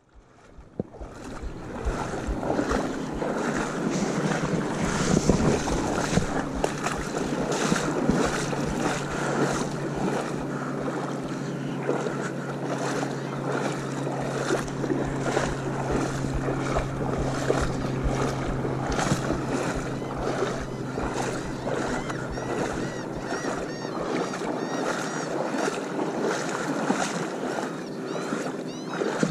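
Boat motor running at a steady pitch while the boat moves over open water, with water rushing and splashing against the hull and wind buffeting the microphone. The sound fades in over the first two seconds.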